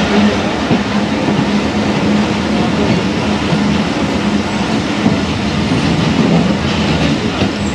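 Tezgam passenger train moving slowly as it comes to a stop at a station: a steady rumble of the coaches with a constant low hum.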